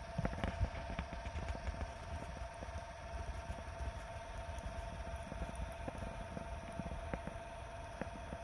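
Wood fire crackling and popping in a steel fire pit, with irregular sharp snaps, over a steady two-note whine from the spit rotisserie's electric motor and a low rumble.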